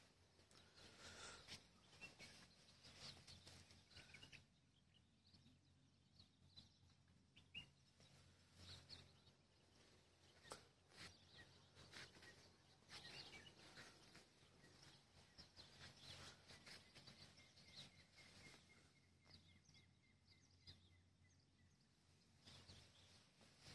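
Near silence: faint outdoor ambience with scattered faint bird chirps and light clicks.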